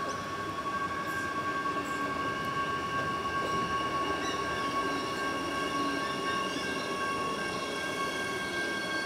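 Adelaide Metro 4000 class electric multiple-unit train running into the station, with a steady high whine made of several pitches. More high tones join about three seconds in as it passes along the platform.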